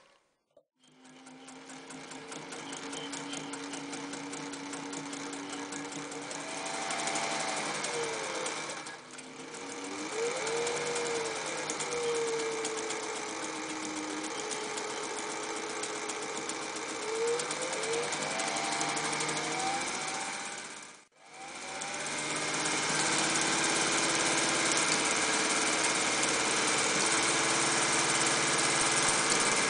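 Singer 201K2 sewing machine's gear-driven potted motor running as it stitches through thick padded fabric. Its whine rises and falls as the speed changes, it pauses briefly about nine seconds in, stops about two-thirds of the way through, and then runs steadily and a little louder.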